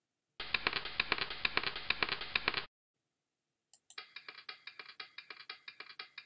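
Two runs of rapid clicking sound effects, like typing: the first dense and full, the second lighter and higher, starting just after a pair of sharp clicks about three and a half seconds in.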